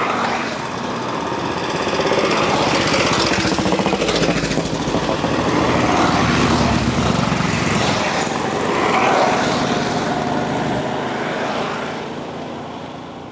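A column of vintage scooters and small motorcycles riding past one after another, their small engines running together. The sound swells as they pass and fades away near the end.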